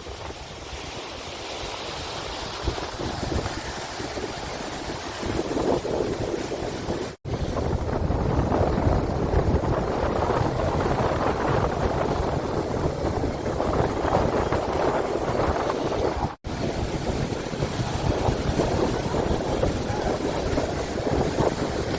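Strong wind buffeting the microphone over the rush of Lake Michigan waves breaking on the beach. The sound cuts out for an instant twice, at about 7 and 16 seconds in, and is louder after the first cut.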